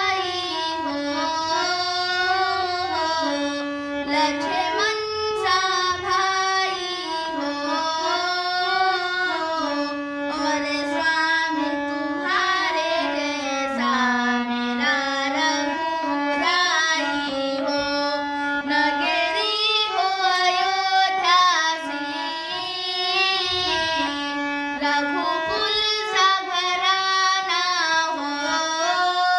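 Singing of a Hindi bhajan to Shri Ram: a single high voice carries a melody of long held notes that step up and down, over light musical accompaniment.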